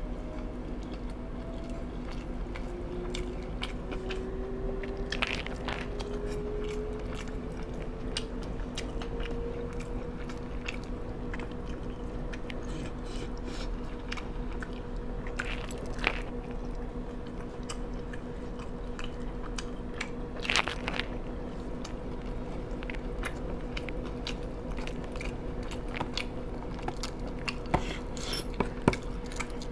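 Close-miked eating: steady chewing with a few sharper crunches and bites scattered through, over a constant low hum.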